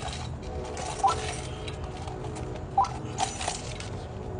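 Slow footsteps and cane taps on concrete steps, a few irregular knocks over a steady low hum.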